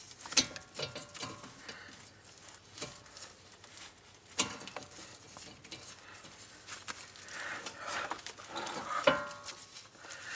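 Scattered faint metallic clicks and light scraping from hand tools and brake parts as the greased lower guide pin bolt of a front brake caliper is screwed back in.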